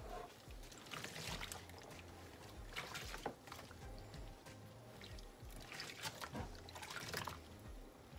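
Sudsy water sloshing and trickling in a plastic tub as hands dip, squeeze and work a wet wig in it, in several short splashes. Faint background music with a steady low beat plays underneath.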